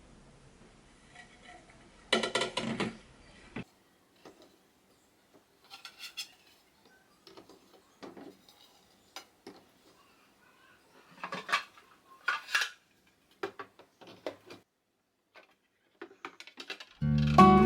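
Dishes and storage containers clinking and knocking as they are handled and set down, in scattered short clatters with the busiest stretches about two seconds in and again past the middle.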